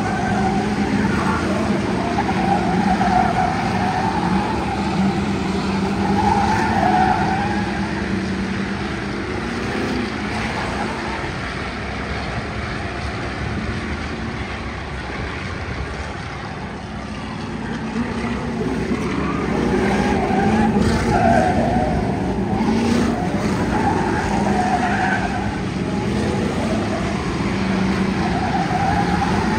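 A pack of endurance race cars, Ford Crown Victorias among them, running at speed around a short track, their engines rising and falling as they pass, with tyres squealing in the turns.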